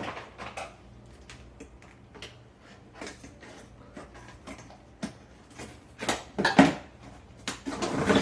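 Cookware and its packaging being handled: scattered light knocks, clicks and clinks, busier about six seconds in and again near the end.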